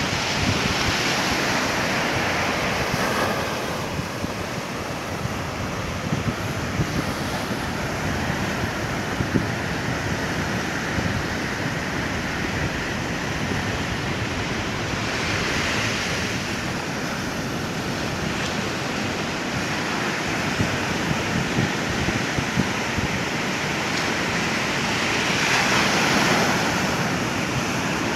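Ocean surf breaking and washing up the beach in a steady rush, swelling louder near the start, about halfway through and again near the end as waves come in, with wind rumbling on the microphone.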